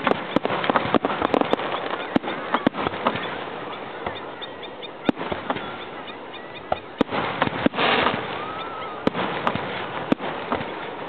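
Aerial fireworks shells launching and bursting in quick succession: a string of sharp bangs and crackles, with a brief loud hiss about eight seconds in.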